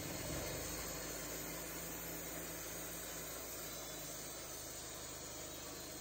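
An engine running steadily under a constant hiss, with no change in speed.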